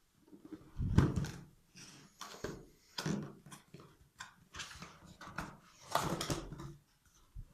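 Cardboard keyboard box being opened and handled: a series of irregular knocks, scrapes and rustles of the lid and flaps, the loudest about a second in, with more near the middle and near the end.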